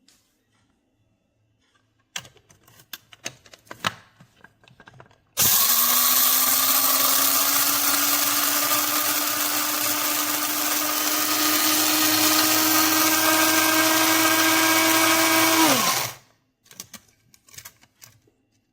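Bodum Bistro electric blade coffee grinder running for about ten seconds, its motor pitch creeping slowly upward, then winding down quickly when it stops. Light handling clicks come before and after.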